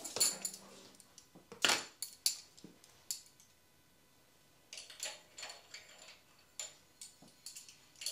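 Scattered light metallic clinks and taps of steel chromoly pushrods being set through the guide plates into the hydraulic roller lifters of a Pontiac 455 V8 block, with a pause of about a second and a half midway.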